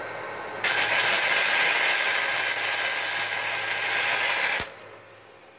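MIG welder's wire-feed motor running, driving the flux-cored wire through the feed rolls with the wire speed still set high. It restarts about half a second in and stops suddenly near the end.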